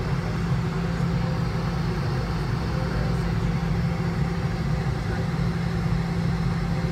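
Steady low hum of a Boeing 717's Rolls-Royce BR715 turbofan engines at idle on the ground, heard inside the cabin, with a constant low drone under an even rush of noise.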